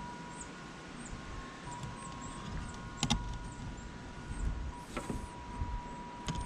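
Fuel pump assembly parts being handled on the bench: a few sharp clicks and knocks, about three seconds in, at five seconds and near the end, over a steady faint high whine.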